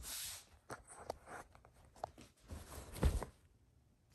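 Bedding rustling and scuffing on a bed as a small dog shifts about on a duvet, in several short bursts, the loudest about three seconds in.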